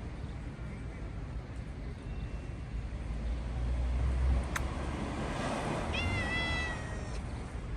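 A hungry cat meowing once, a single call about a second long near the end, rising briefly and then held steady. A sharp click sounds a little past the middle.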